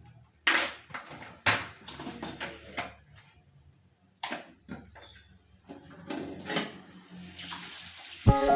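Tap water running and splashing in short separate bursts as things are rinsed under it, settling into a steady stream about seven seconds in. Music comes in just before the end.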